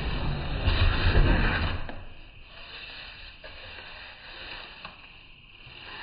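Knife slicing through the packing tape on a cardboard box, a scratchy rasp loudest for the first two seconds, then quieter scraping along the seam.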